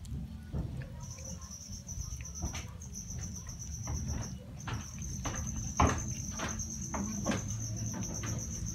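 Cats chewing and smacking at shredded steamed chicken: a run of short, sharp wet clicks, thicker and louder in the second half. Under it a cricket trills steadily at a high pitch from about a second in, with a brief break midway.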